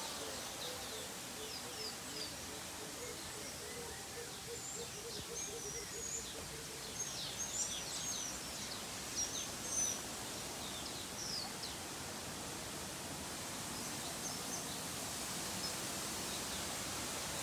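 Many small birds chirping in quick, high calls over a steady outdoor background noise. The chirping thins out after about twelve seconds.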